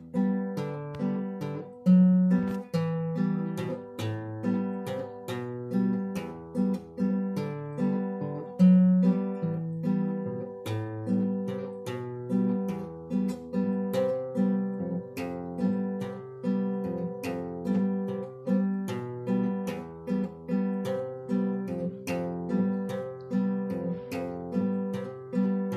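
Nylon-string classical guitar played fingerstyle, a solo study: a steady flow of plucked notes over a bass line, with a few louder accented notes.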